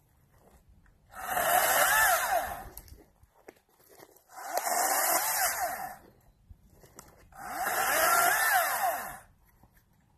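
Greenworks 40-volt DigiPro battery chainsaw cutting pine in three short bursts of about two seconds each, its motor whine rising and falling in pitch during each cut, with quiet pauses between.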